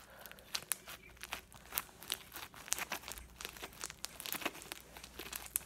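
White slime with foam beads squeezed and kneaded in the hands, air pockets popping out as a quick, irregular run of crackling clicks: slime bubble pops.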